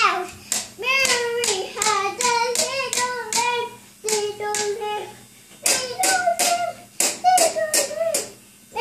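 A young girl singing in a high voice, with held notes that slide in pitch and words that can't be made out. The singing stops for a short pause about four seconds in and again near the end.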